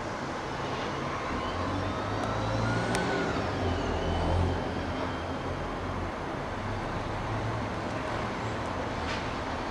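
Low, steady rumble of distant engines, swelling for a couple of seconds about three to four seconds in. A single sharp click about three seconds in.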